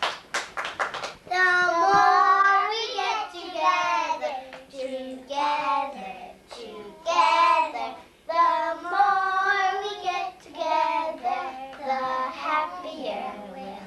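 Young children singing together without accompaniment, in phrases of held notes with short breaks. A few short sharp clicks in the first second.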